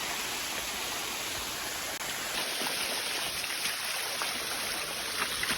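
Water flowing steadily down the cascades of a waterfall, an even rushing hiss with no break.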